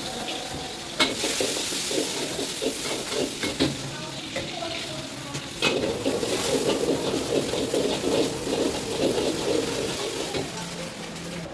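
Food sizzling as it is stir-fried in a wok, a metal ladle knocking and scraping against the pan in quick irregular strokes, with sharper clangs about a second in and again near the middle.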